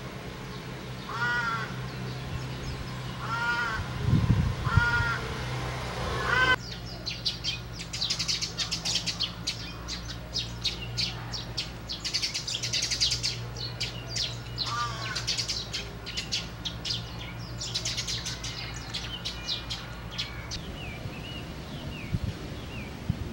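A crow cawing: four caws in the first six seconds and one more about fifteen seconds in. From about six seconds in there is a rapid chatter of small birds chirping. A steady low hum underneath stops about twenty seconds in.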